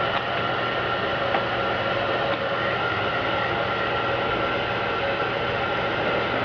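Heat gun's fan motor blowing steadily while warming tint film on a taillight to shrink out wrinkles.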